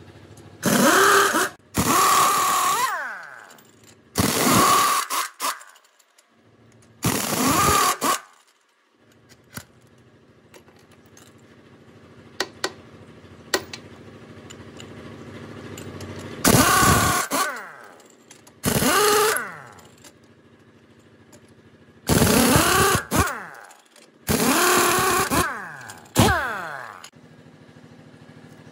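Pneumatic impact wrench loosening truck wheel nuts: about nine loud rattling bursts of a second or so each, each ending with a falling whine as the tool spins down.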